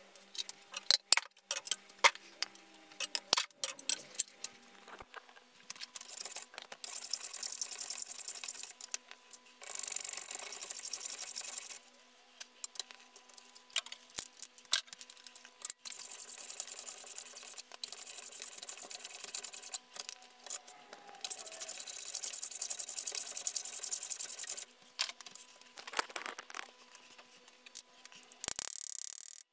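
Woodworking at a bench vise: a run of clicks and knocks as boards are handled and clamped, then several long hissing strokes across wood, each lasting two to three seconds.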